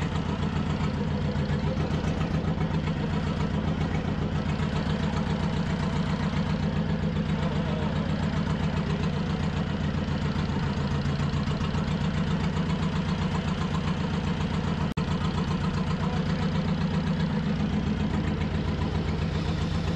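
Fishing boat's engine idling steadily, with a fast, even pulse.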